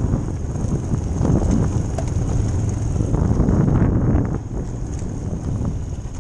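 Motorcycle engine running while riding a rough dirt trail, mixed with wind buffeting a helmet-mounted microphone; the engine eases off a little about four seconds in.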